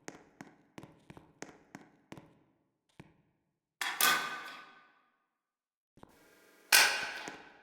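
A run of light taps, about three a second, then two loud struck sounds about three seconds apart, each ringing briefly and fading over a second or so.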